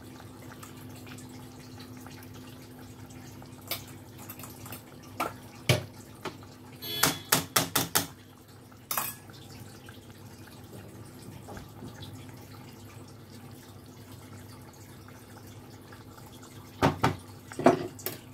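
Katla fish gravy simmering in a nonstick pan: bubbles popping in scattered sharp pops, with a quick run of about five past the middle and two more near the end, over a steady low hum.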